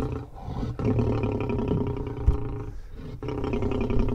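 African lion growling and roaring in long bouts with short breaks between, the sound of a lion at bay making a stand against the hunters. A single sharp knock sounds just past halfway.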